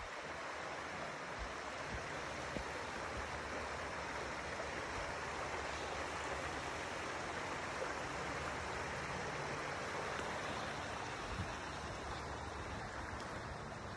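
A creek running over rocks: a steady, even rush of water, with a few soft low thumps along the way.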